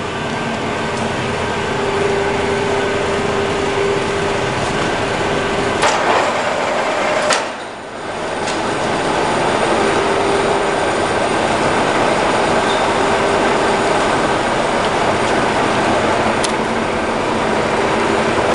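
Model 163 (DIP300) engine lathe running, a steady whir and rattle of its spindle and gearing, with two sharp clicks and a brief drop in level around the middle.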